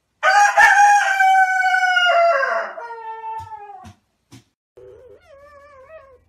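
A rooster crowing once, one long call of about two and a half seconds that trails off. Near the end, a fainter wavering animal whine.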